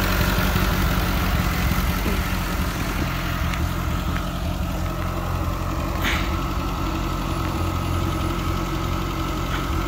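Second-generation Mitsubishi Eclipse GS-T's turbocharged four-cylinder engine idling steadily, just started after a blown engine fuse was replaced, which cures its crank-but-no-start fault. A brief click comes about six seconds in.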